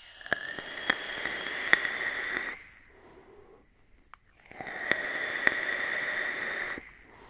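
Two long draws on an e-cigarette, each a couple of seconds of airflow hiss with a thin steady whistle and a few sharp crackles from the coil, with a short pause between them.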